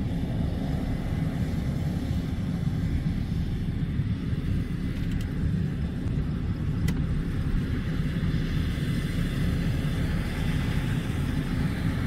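Steady low rumble of a Case IH tractor engine running while its grain cart's auger unloads wheat into a trailer.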